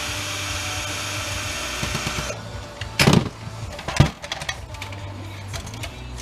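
Handheld power drill running steadily, cutting off a little over two seconds in, followed by two loud knocks of metal parts being handled and a few small clicks.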